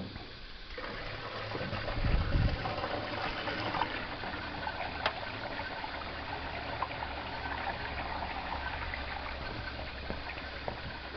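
Discharge from an 80-litre bath gushing out and running down an egg-shaped sewer pipe. The flow starts about a second in, is loudest around two seconds, then runs on as a steady rush of water.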